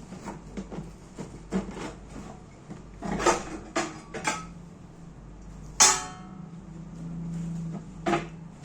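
Clatter of hard parts being handled and set down: a run of knocks and clicks, with a sharp metallic clink that rings briefly about six seconds in.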